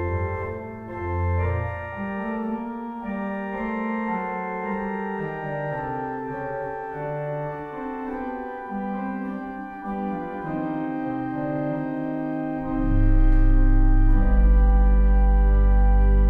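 Pipe organ playing slow, sustained chords. About three-quarters of the way through a deep pedal bass note comes in and the music swells louder, holding a full chord.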